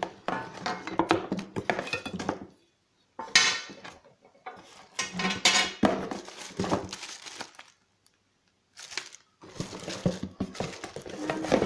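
Unboxing handling of an angle grinder and its packaging: crinkling plastic and cardboard with clinks and knocks of hard parts, in irregular bursts with a few short pauses.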